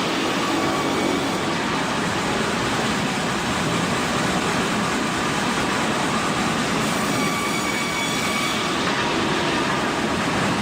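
Sawmill machinery running with a steady mechanical noise, with a faint whine rising out of it about seven seconds in.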